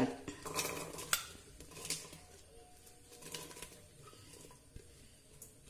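Pieces of cut ash gourd being pushed off a plate and dropping into a steel pressure cooker: a few light knocks and scrapes, clearest in the first two seconds, then fainter.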